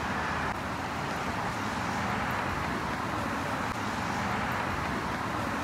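Steady outdoor background noise of distant road traffic, an even hiss without separate events.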